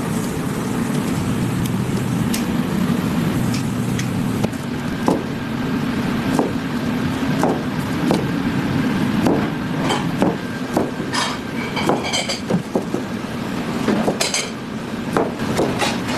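Steady street-traffic rumble with frequent short knocks and clinks of kitchen utensils and dishes, and a few ringing metallic clinks in the second half.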